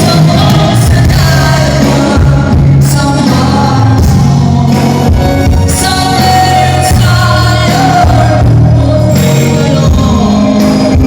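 A male singer singing loudly with musical accompaniment during a concert sound check.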